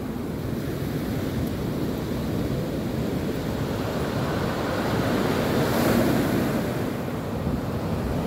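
Sea waves breaking and washing up a sand-and-shingle beach, a steady surf wash that swells louder as a wave breaks about six seconds in, with wind rumbling on the microphone.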